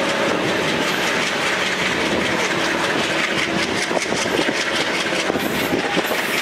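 Coach wheels of a passenger express rolling over the rails as the train pulls out of a station, heard from an open coach door, with a run of clickety-clack as the wheels cross rail joints and points.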